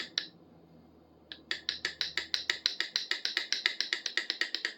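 Rapid metallic clicking, about seven clicks a second, from a pair of steel pliers being worked open and shut at the joint to free it up. The clicking stops for about a second shortly after the start, then resumes at the same pace.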